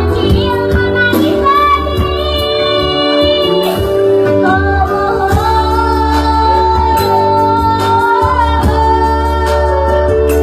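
A five-year-old girl singing a song over instrumental backing with a steady bass and beat, holding one long note in the middle.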